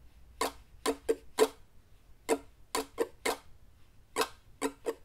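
Ukulele strummed in the common four-stroke pattern, down, down, down, up, as short strums. The bar repeats about three times.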